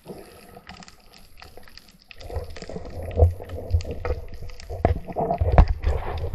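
Underwater noise picked up through an action camera's waterproof housing during a night dive: a low, uneven rumble of water moving and the camera being handled, with many sharp clicks and knocks. The sound grows louder about two seconds in.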